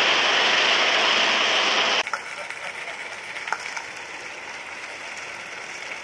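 A loud, steady hiss that cuts off abruptly about two seconds in. It is followed by a quieter stretch with a few light clicks from a large-scale live-steam train rolling along the elevated track.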